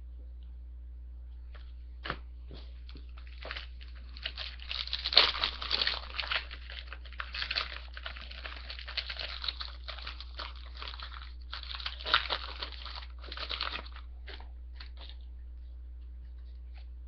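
Trading card pack wrapper being torn open and crinkled, then cards being handled: irregular crackling that is busiest in the middle, over a steady low hum.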